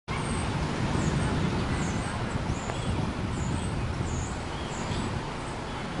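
Steady rumble of road traffic, with faint high bird chirps repeating over it.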